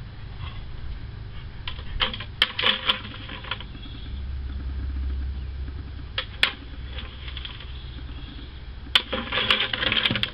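A dog knocking over a white plastic bucket and nosing it along the ground: hollow plastic clattering and knocks in a few bursts, about two seconds in, once around six seconds, and a longer run near the end.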